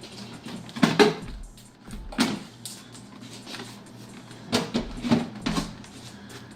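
Several sharp knocks and clunks from a Jeep XJ's interior door panel being worked off: a pair about a second in, one at about two seconds and a cluster around five seconds, over faint background music.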